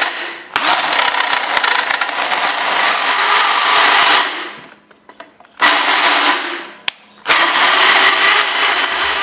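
Power drill cutting into the inside end of a 1.5-inch metal tube, reaming it out to fit the neck bearings. It runs in three bursts with short pauses between them; the first is about four seconds long.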